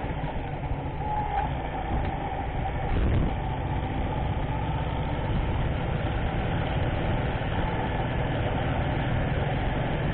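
Motorcycle engine idling steadily while stopped.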